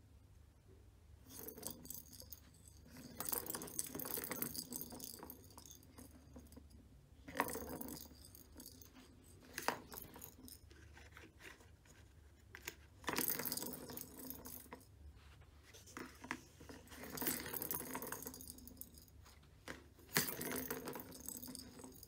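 Balls rattling and rolling around the tracks of a plastic three-tier cat ball-track toy as a cat bats at them, in about seven bursts of one to two seconds with short pauses between.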